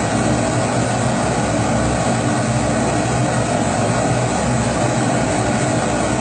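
Kerosene pressure stove (Primus-type babour) burner running steadily: an even, constant rushing noise with no change in level.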